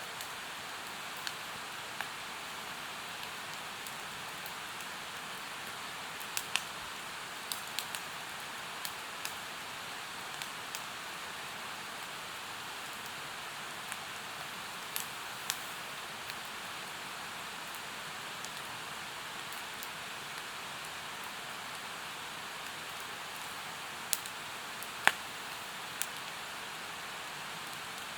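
Wood campfire crackling, with sharp pops every few seconds, the loudest near the end, over the steady rush of a mountain stream.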